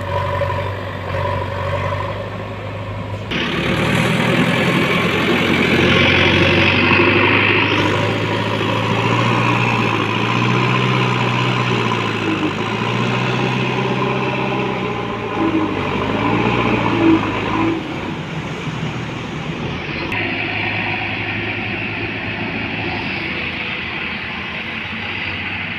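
JCB 3DX backhoe loader's diesel engine working under load as it pushes soil with its front bucket, the engine note rising and falling. The sound changes abruptly a few times.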